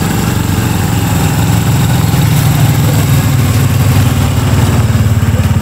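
An engine running steadily and loudly, with a fast, even low pulsing.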